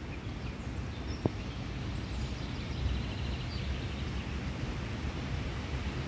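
Steady low outdoor rumble with a few faint, high bird chirps and a single sharp click about a second in.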